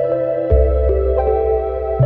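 Background music: calm new-age ambient music, sustained keyboard chords over a low bass note that changes about half a second in.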